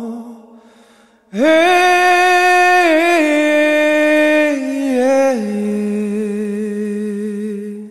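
Background music: a slow, chant-like vocal line of long held notes. One phrase fades out, then after a short gap a new note starts and steps down in pitch twice before ending near the close.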